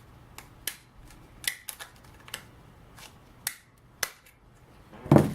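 Hard 3D-printed plastic parts clicking and knocking as a piece is worked and pressed into place: a string of separate sharp clicks, then a heavier knock near the end.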